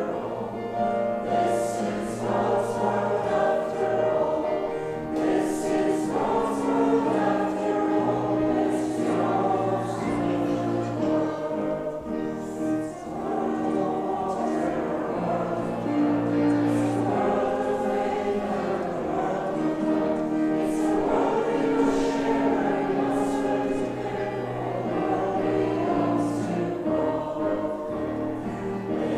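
Church congregation singing a hymn together with piano accompaniment.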